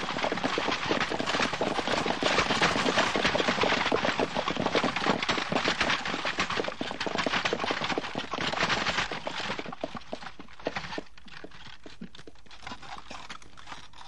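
Fast, dense clatter of many horses' hooves from a column of horse-drawn war chariots arriving at speed. The clatter dies away about ten to eleven seconds in.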